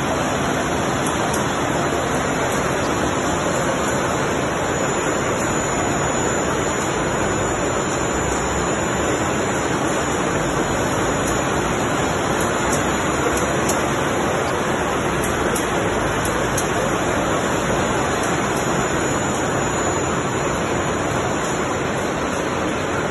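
Steady rushing noise of a large brewery bottling hall, the even hum of its machinery and air handling, with faint scattered ticks.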